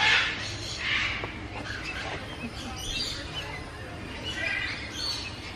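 Several birds chirping and twittering, short high calls scattered all through.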